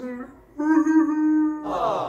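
A man's voice holding one steady note for about a second, like a drawn-out hum or moan, then a breathy, falling sigh.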